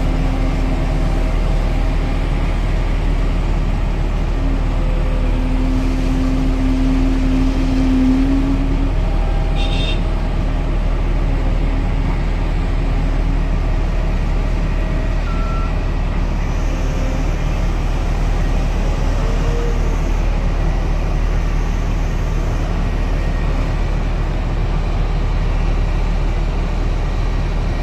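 Heavy diesel engines of a Volvo EC950E crawler excavator and a 200-tonne Belaz haul truck running steadily. A humming tone rises slightly in pitch for a few seconds, and there is a brief clank about ten seconds in.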